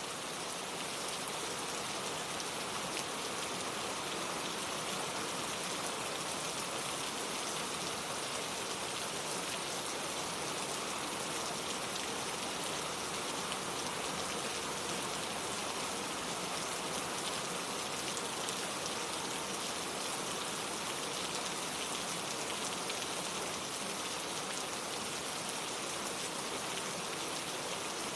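Steady rain falling, a dense even hiss of many drops striking surfaces.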